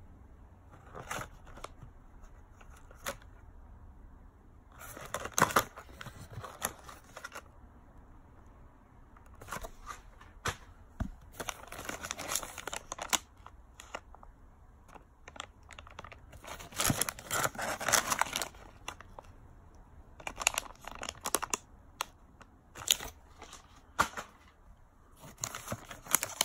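Plastic candy packets crinkling as they are picked up, handled and shuffled about in a cardboard box, in irregular bursts with quieter gaps between.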